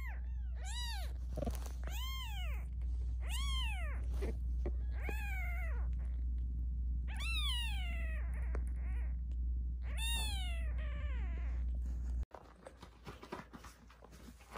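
Newborn kitten mewing: a string of thin, high cries, each rising then falling in pitch, over a steady low hum. About twelve seconds in, the cries and hum cut off abruptly, leaving only faint soft ticks.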